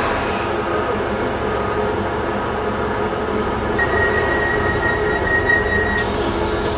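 Class 150 Sprinter diesel multiple unit's underfloor Cummins diesel engines idling steadily, heard from inside the carriage by an open doorway. About four seconds in, a steady high warning beep sounds for about two seconds, and as it stops a sudden hiss starts.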